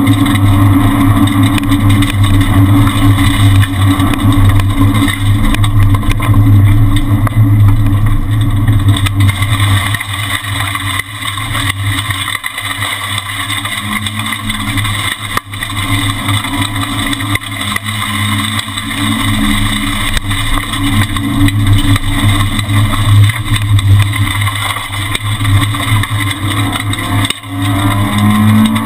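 Renault Twingo R1 rally car's engine heard from inside the cabin, running hard at high revs on a special stage, the note rising and falling with throttle and gear changes, with a few brief drops where the driver lifts or shifts.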